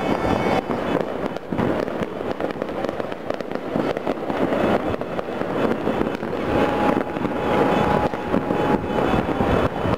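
Dense, continuous popping and crackling of many fireworks and firecrackers going off across a city. A steady tone joins in about six and a half seconds in.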